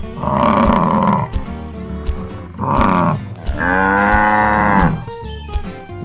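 Cows mooing three times: a call about a second long, a short one, then a longer one that drops in pitch at its end, over background music.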